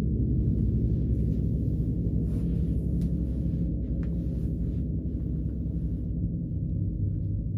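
A 60-inch rain gong sounding a deep, sustained wash of dense low overtones. A faint higher shimmer dies away about six seconds in.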